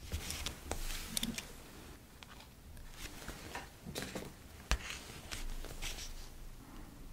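Pen scratching on a paper journal page, then paper handling and metal tweezers clicking and tapping on the page, with one sharp tap a little past halfway.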